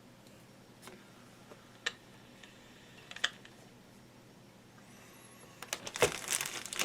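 Plastic amp knobs and small parts being handled: three single sharp clicks about a second apart, then a quick cluster of clicks and clatter near the end, the loudest part.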